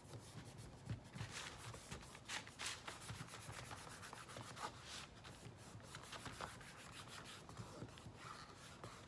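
Fingers rubbing and smoothing scrapbook paper down onto a small sign coated with wet Mod Podge: faint, irregular rubbing strokes.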